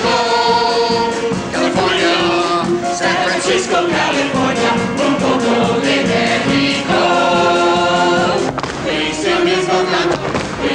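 A stage chorus of men and women singing together over musical accompaniment, holding long notes near the start and again about seven seconds in.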